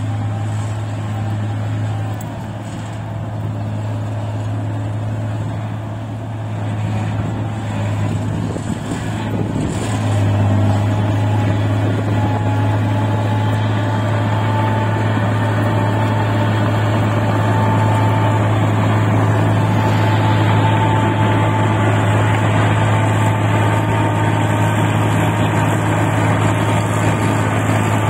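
New Holland combine harvester running while it cuts and threshes rice, a steady low engine hum with a steady high whine over it. It grows louder about ten seconds in.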